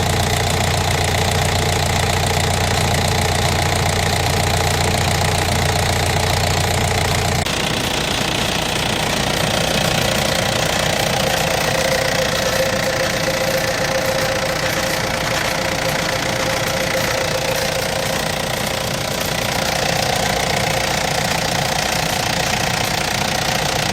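Diesel engine of a Mecalac 8MCR mini excavator running steadily. About seven seconds in the sound changes: the deep low hum drops away and a higher steady tone comes up for the rest of the stretch.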